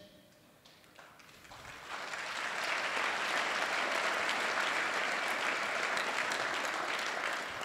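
Audience applause: a crowd clapping that swells up after a second or two, holds steady, and begins to die away near the end.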